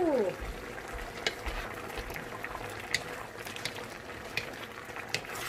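Vegetables in coconut milk simmering and bubbling while a wooden spatula stirs them in a metal wok, with a few light clicks of the spatula against the pan.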